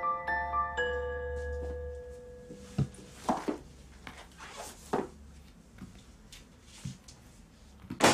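A bell-like mallet-percussion music cue, its last held notes fading out about two seconds in, followed by a few scattered soft knocks and clicks and one sharp, louder knock at the very end.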